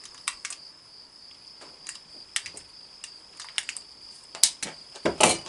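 Crickets chirring steadily in one high, unbroken trill, with scattered small clicks from handling gear and a louder clatter near the end.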